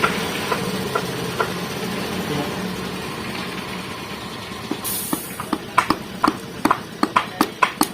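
A steady engine hum that fades over the first four seconds, then a brief hiss about five seconds in, followed by a run of sharp clicks, about two to three a second, typical of hand tools being worked during engine assembly.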